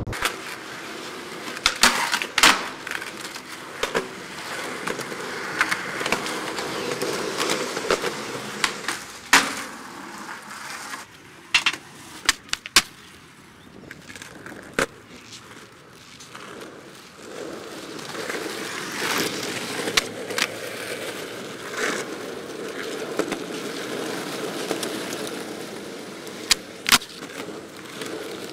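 Skateboard wheels rolling on rough asphalt, with sharp clacks of the board's tail popping and the board landing, scattered through; the loudest come about 2 and 9 seconds in and near the end.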